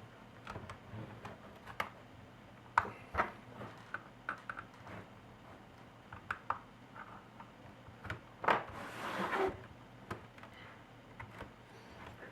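Irregular plastic clicks and taps as the plastic back cover of a Lenovo IdeaPad S210 Touch laptop is pried loose with plastic cards, with a longer scraping rasp about eight and a half seconds in, lasting about a second.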